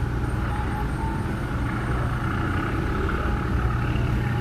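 Ship's engine running with a steady low drone.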